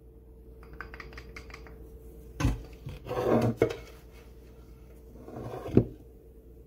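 Spoon scraping and tapping in a small ceramic cup as soft squash filling is scooped out. There are two sharp knocks of dishes on the counter, one about two and a half seconds in and one near the end, with a rubbing scrape between them. A steady hum runs underneath.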